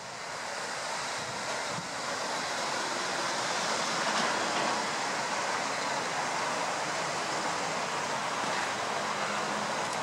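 Steady rushing outdoor noise that grows louder over the first few seconds and then holds level; no bird call is heard.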